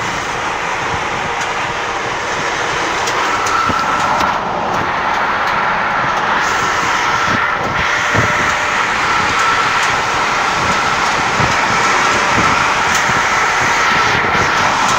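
Steady road noise from beneath a semi-trailer travelling at highway speed: tyre roar, wind and rattle recorded from a hammock slung under the trailer. A faint steady whine joins about three seconds in.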